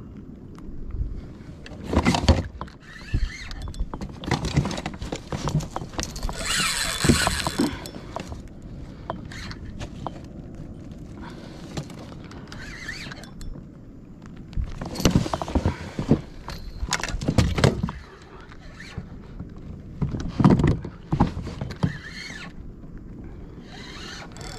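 Kayak paddle strokes: the blade splashing in the water in irregular surges every couple of seconds, with occasional sharp knocks.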